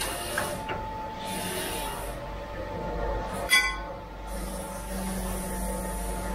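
Crystal grinding machine with a rotating lapping disc running with a steady hum. About three and a half seconds in there is one sharp metallic clank that rings briefly.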